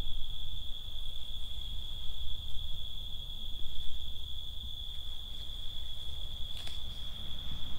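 Night insects trilling in one steady, unbroken high note, over an uneven low rumble, with a single click near the end.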